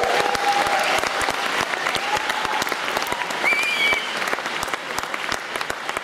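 Concert audience applauding after a song ends: a dense, steady clapping that slowly fades.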